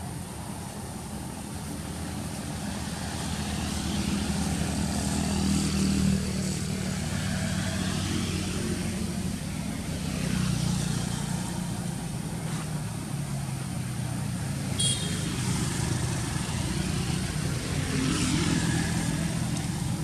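Motor vehicle engines running nearby, growing louder and fading away several times as traffic passes. A brief high chirp cuts through about three-quarters of the way in.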